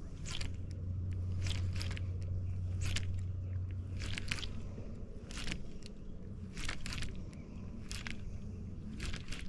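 Baitcasting reel being cranked during a retrieve, with short crackling scrapes about once a second.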